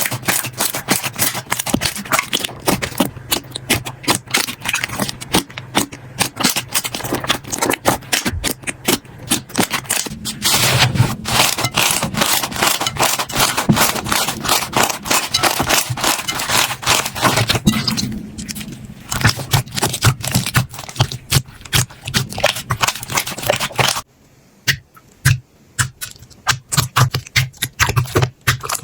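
Slime being squeezed and worked by hand, giving a rapid, irregular run of crackling pops and clicks as air pockets burst. It drops almost to quiet briefly about 24 seconds in, then the clicks pick up again.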